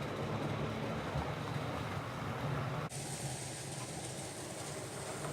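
Electric model train running along the track: a steady whirring motor and wheel rumble. The sound changes abruptly about three seconds in.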